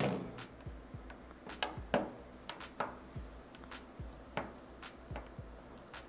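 Small screwdriver clicking and scraping in the plastic housing of a Nest smoke detector as screws are worked out: irregular light clicks and taps, a handful of them sharper than the rest.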